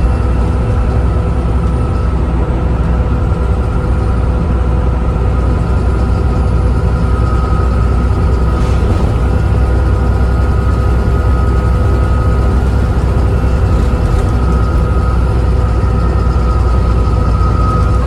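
Volvo B7TL double-decker bus under way, its six-cylinder diesel giving a steady low drone. Over it the engine cooling fan blares with a steady hoover-like whine.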